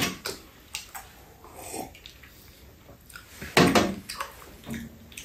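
Two people eating sandwiches at a metal tray table: soft chewing and scattered small clicks of handling, with one louder thump about three and a half seconds in.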